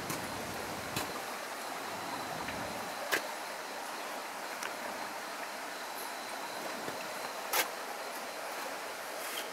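Steady, even outdoor background hiss with a faint high steady tone, broken by three sharp clicks spread through.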